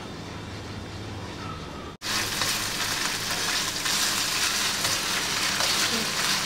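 Coconut milk simmering quietly in a nonstick wok as a spatula stirs it. About two seconds in, it cuts to a loud, steady sizzle as the thickened, curdling coconut milk fries in its own oil while being stirred and scraped, the stage where latik forms.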